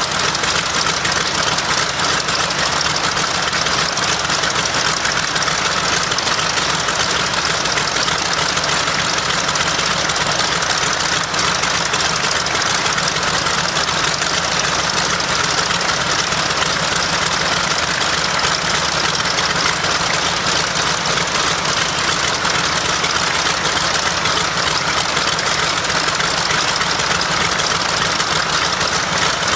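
Nakajima Sakae fourteen-cylinder two-row radial engine of a Zero fighter, running steadily at an even speed during a ground run.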